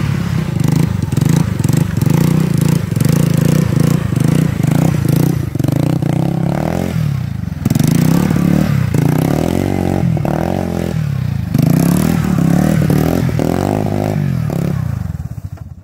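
Three-wheeler ATV engine revving hard and easing off again and again as the rider pulls wheelies, its pitch rising and falling. The revs drop off sharply about seven and a half seconds in and again around eleven and a half seconds before climbing again.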